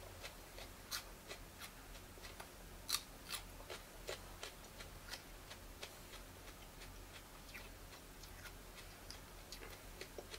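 A raw serrano pepper being chewed: short, crisp crunches at irregular intervals, coming more often in the first few seconds and thinning out after.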